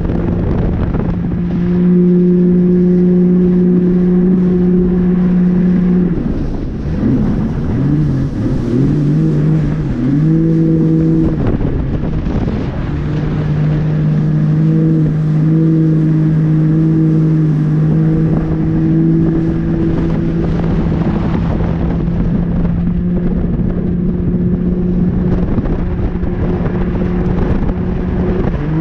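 Jet ski engine running at a steady high throttle, its pitch wavering up and down for several seconds about a quarter of the way through as the throttle is eased and reopened. A rushing noise of wind and spray runs under it.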